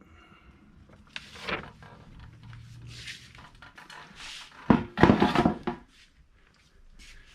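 Handling noises of a metal deck board being lifted out of a car's hatch floor: scraping and rattling, with a loud clatter about five seconds in.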